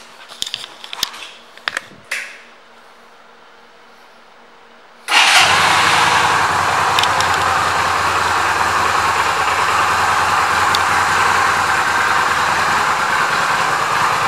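A few light clicks, then about five seconds in a Yamaha V Star 250's small air-cooled V-twin starts abruptly. It settles straight into a steady idle.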